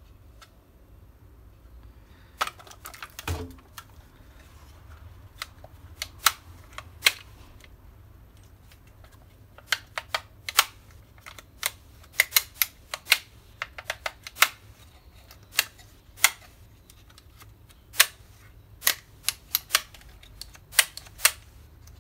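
Kiekert electric door lock from a GM Vectra being worked by hand: its latch and lock levers snap over with dozens of sharp, irregular clicks from about two seconds in, with one heavier low knock a second later. The freshly reassembled mechanism is operating freely.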